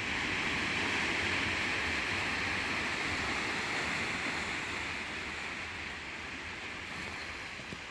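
Sea surf washing onto a rocky shore: an even rush of water that swells up at the start and slowly dies away.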